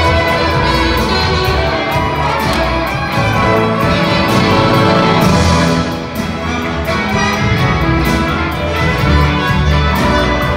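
Live rock band with an orchestra playing together: electric guitar, piano, upright bass and drums with violins, cello and brass. Heard from the audience, loud and continuous.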